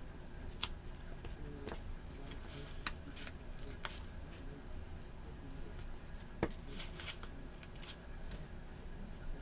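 Pen writing on planner paper: short, irregular scratchy strokes and light taps of the pen against the page.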